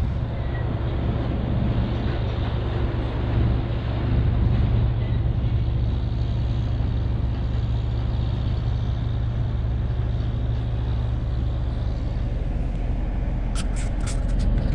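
A vehicle engine running steadily, a low even drone with no change in speed. Near the end, four or five sharp clicks come in quick succession.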